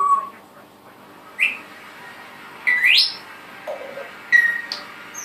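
Pet birds whistling and chirping: a string of short whistled calls, one gliding sharply upward about three seconds in and a long falling whistle at the very end.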